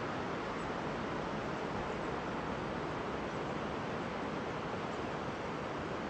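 Steady rush of a shallow, fast mountain river running over a stony bed: an even, unbroken roar of water.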